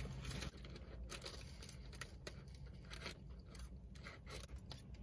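Paper sandwich bag rustling and crinkling in the hands while a breakfast sandwich is held and bitten, with faint irregular crackles.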